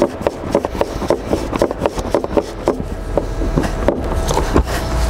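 Hand ratchet wrench clicking in quick strokes, about four or five sharp clicks a second, as bolts in the engine bay are worked loose, over a steady low hum.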